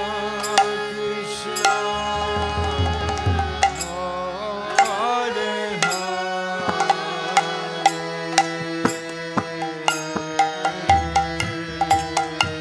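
Devotional kirtan music: a harmonium sustaining chords and melody, with small hand cymbals (kartals) clicking in a steady beat and a hand drum thumping near the start and end. A wavering melodic line rises and falls in the middle.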